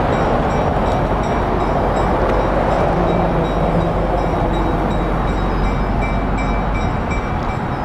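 Skunk Train running, a steady rumble with no horn.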